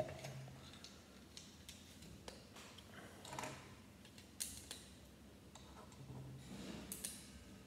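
Scattered light clicks and taps of Wilko Blox plastic building bricks being handled and pressed together, a handful spread over several seconds.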